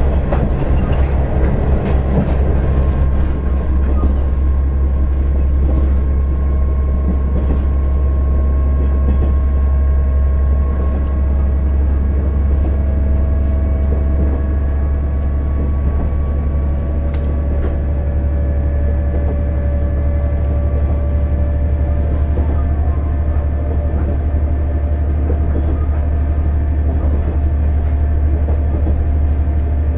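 KiHa 110 diesel railcar's engine running steadily under load as it climbs a long grade, a deep drone with a faint steady whine above it and light clicks from the track.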